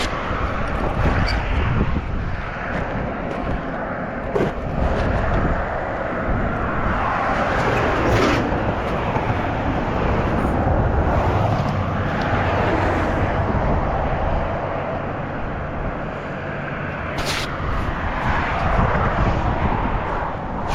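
Road traffic passing: a steady rumble that swells and fades as vehicles go by, with a few sharp knocks.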